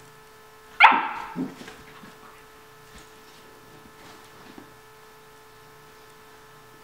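Nine-week-old Vizsla puppy giving one sharp, high bark about a second in, followed at once by a shorter, lower sound, then only faint scuffling.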